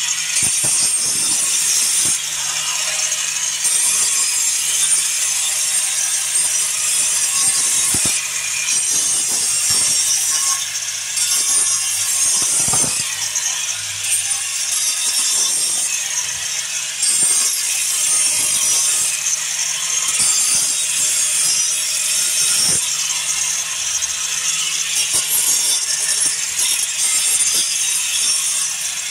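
Corded handheld grinder running against brick: a steady motor hum under a gritty, high-pitched grinding hiss that dips briefly a few times as the tool is worked along the surface.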